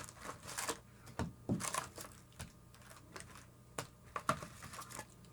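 A sealed box of trading cards being opened by hand: plastic shrink wrap crinkling and tearing, with scattered cardboard clicks and scrapes coming irregularly.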